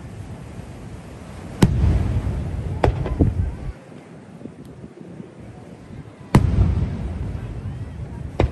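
Aerial firework shells bursting: a loud bang about one and a half seconds in, two smaller cracks just after, another loud bang past the middle and a crack near the end, each trailing off in a low rolling rumble.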